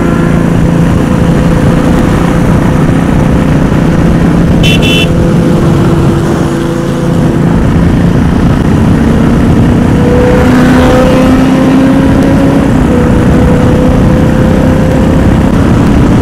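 Royal Enfield single-cylinder motorcycle engine running at cruising speed, heard with heavy wind rush on the microphone. The engine eases off briefly around six to seven seconds in, then its pitch climbs slowly from about ten seconds as the bike accelerates. A short high beep sounds about five seconds in.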